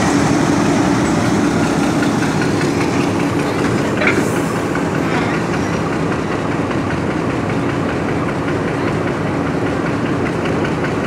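Passenger train at a station platform: the diesel locomotive's engine runs steadily under a rumble of rail noise, with one short sharp sound about four seconds in.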